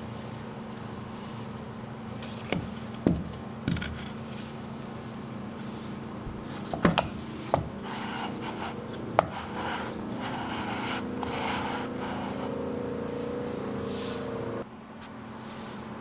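MDF planetary gearset turned by hand: the wooden gear teeth rub and scrape as they mesh, with several sharp wooden knocks in the first half. The scraping runs steadily through the second half and cuts off suddenly near the end, over a steady low hum.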